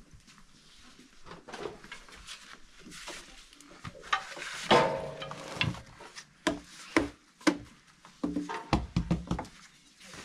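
Scattered knocks, taps and scrapes of bread-making work: metal trays, bowls and thin wooden rolling pins being handled and set down. A brief call cuts in about five seconds in.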